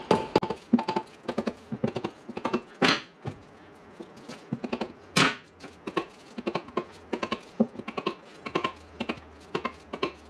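Rubber mallet lightly tapping the side retainer of a Subaru R160 rear differential housing to work it loose: an irregular run of knocks and clicks, with heavier blows about three and five seconds in.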